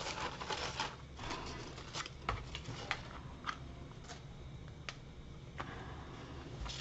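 Faint rustling of crepe paper being pressed and handled, then a few scattered light clicks and taps as a hot glue gun is picked up and handled.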